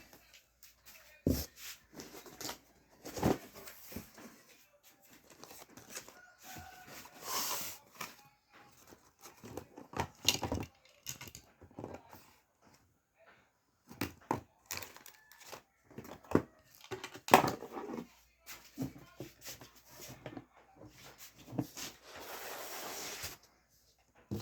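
A cardboard parcel being torn open and handled: ripping tape, crinkling wrapping and scattered knocks, with a longer tearing rasp near the end.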